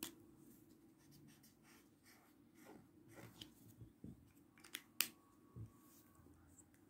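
Near silence with faint handling of felt-tip markers: a few soft clicks and light scratches, the sharpest click about five seconds in.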